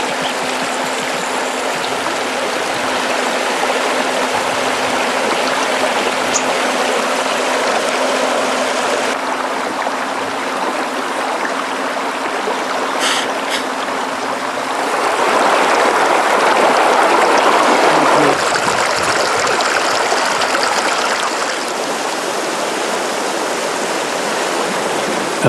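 Mountain stream running over rocks: a steady rush of flowing water that swells louder for a few seconds in the middle.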